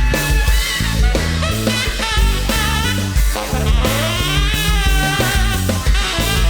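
A band playing live with no vocals: drum kit, bass and a lead instrument whose notes bend in pitch, an instrumental break in a country-rock song.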